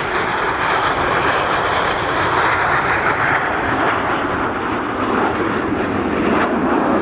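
A fixed-wing aircraft's engine running steadily as the plane flies by.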